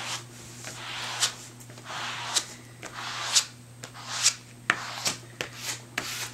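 A plastic spreader scraping across mulberry paper, spreading a thick methyl cellulose paste in repeated strokes about once a second, each swish ending sharper than it began.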